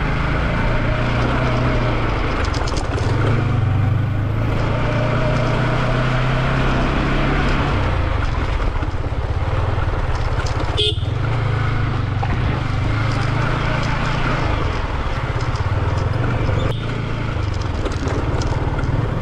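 Yamaha R15 V4's 155 cc single-cylinder engine running steadily as the bike rides slowly over a rough dirt and gravel lane, with a sharp knock about eleven seconds in.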